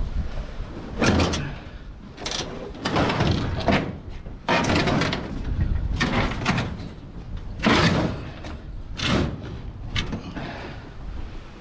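A series of clunks, rattles and scrapes, about one a second, as scrap is shoved and shifted to fit a tightly packed vehicle load.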